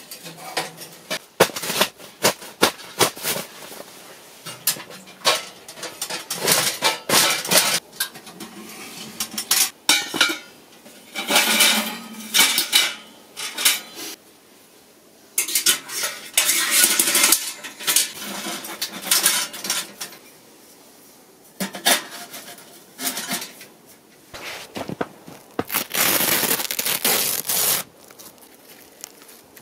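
Metal clinking and clattering from a small portable sheet-metal wood stove as its folding legs are set and its stove pipe is fitted, with stretches of scraping. Near the end there is a longer rush of noise as the tent canvas is pulled.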